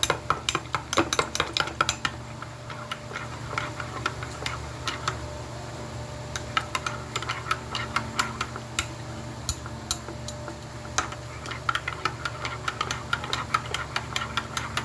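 A spoon stirring quickly in a bowl, clinking against its sides in rapid runs with short pauses, mixing coconut milk powder.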